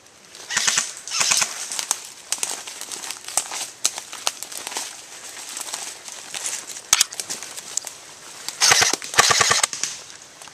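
Airsoft electric rifle firing on full auto: a rapid burst of shots about half a second in, scattered single cracks through the middle, and a second rapid burst near the end.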